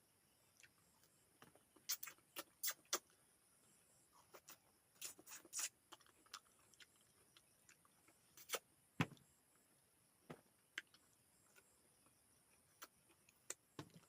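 Close-up chewing and mouth clicks from someone eating, with scattered small crunches and a dull knock about nine seconds in.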